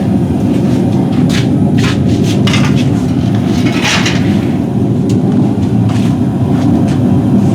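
A loud, steady low roar of shop equipment, with a few separate sharp metal taps from hammering on riveted steel.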